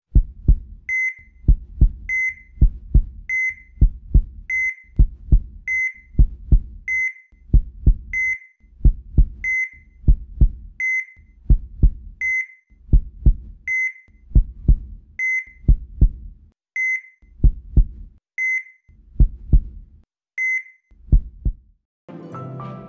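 Heartbeat sound effect: paired low thumps, each beat with a short high electronic heart-monitor beep, a little under once a second, the beat slowing toward the end and then stopping. Music starts right at the end.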